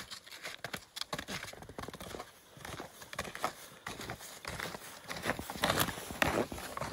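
Snowshoe footsteps crunching in snow: a quick, irregular run of crunches that gets louder in the last couple of seconds as the walker comes up close.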